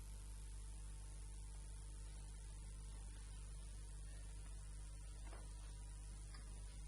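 Steady low electrical mains hum, a buzz at the mains frequency with its overtones, with a couple of faint taps near the end.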